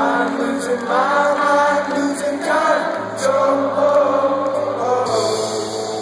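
Rock band playing live with sung vocals, heard from within the audience in a concert hall.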